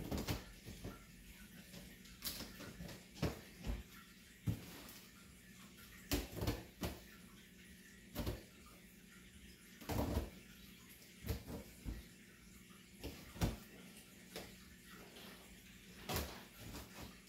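Scissors cutting through packing tape on a cardboard shipping box: irregular sharp snips and crackles, about one every second or two.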